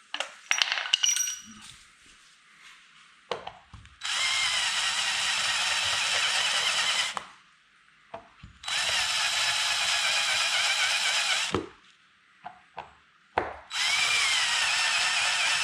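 Power drill drilling out pop rivets, running in three bursts of about three seconds each as the bit grinds through the rivet heads. A few light clicks come near the start.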